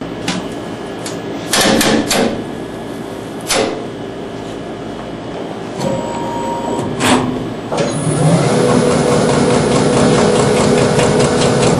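A horizontal automatic pork slicing machine: several sharp metallic clunks and knocks in the first half, then about eight seconds in its motor starts and runs with a steady hum.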